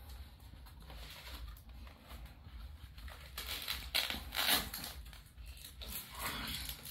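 Rustling and scraping of a cricket bat's fabric cover as it is handled and pulled open. There are louder scratchy bursts between about three and a half and five seconds in, and again about six seconds in.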